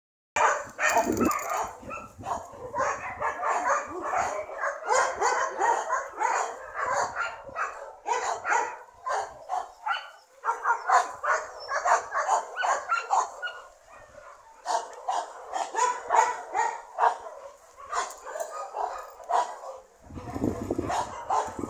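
Dogs barking and yipping almost without a break, the calls crowding over one another, with a few short lulls.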